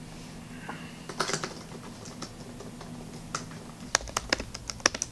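Typing on a laptop keyboard: a few scattered key clicks, then a quick run of key taps from about four seconds in.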